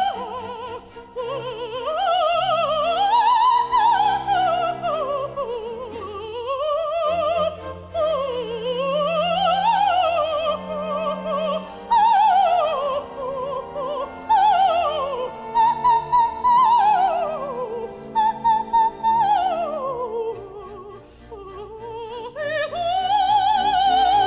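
Operatic soprano with wide vibrato singing a florid agility passage with instrumental accompaniment. The voice sweeps up and down and then sings a series of quick descending runs (roulades).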